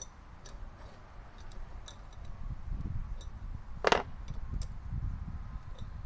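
Small metal hardware being handled on a wooden board: scattered light clicks and clinks, with one sharper knock about four seconds in, over a low rumble in the middle.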